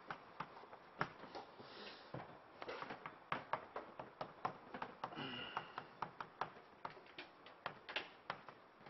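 Chalk tapping and scratching on a blackboard as characters are written: a long run of faint sharp taps, about three or four a second, with light scraping between them.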